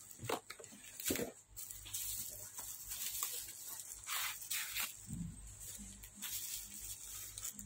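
Bubble wrap rustling and crinkling in bursts as a bubble-wrapped package is handled and lifted out of a cardboard box.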